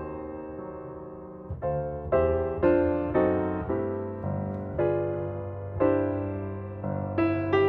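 Background piano music, gentle notes and chords struck one after another, each fading before the next.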